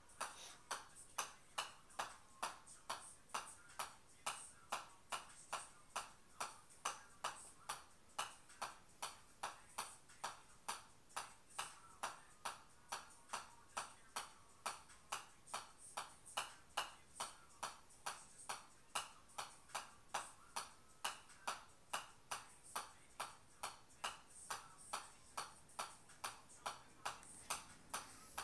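Golf ball bounced continuously on the face of a pitching wedge: a steady, even run of sharp clicks, about two and a half a second.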